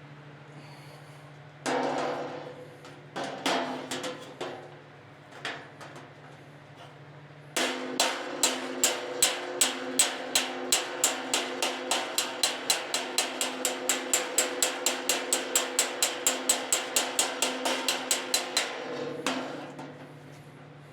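Body hammer striking a sheet-metal car fender against a dolly, working out a dent: a few separate blows, then a long, fast, even run of about four ringing blows a second that stops near the end.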